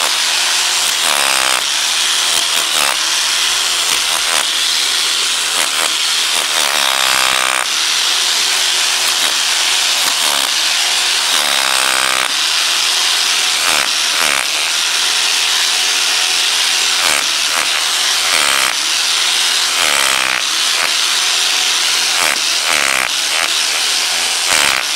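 Electric power chisel (a hammer drill hammering) breaking into a concrete wall, heard through the wall: a continuous loud rattling hammer, its motor pitch dipping and rising again a few times.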